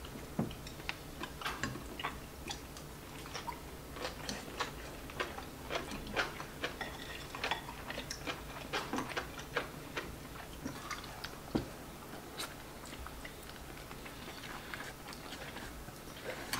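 Eating at a table with chopsticks: many small irregular clicks of chopsticks against bowls and plates, with quiet chewing of noodles.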